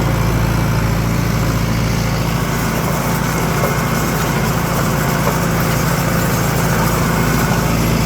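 Tractor engine running steadily, a constant low drone.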